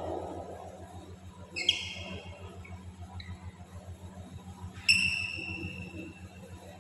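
Two sudden, high, ringing squeaks about three seconds apart, the second louder and longer, fading away, over a steady low hum in a badminton hall.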